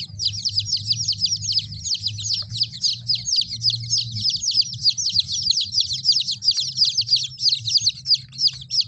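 A brood of kampung chicks peeping continuously, many short falling cheeps overlapping, over a low steady hum.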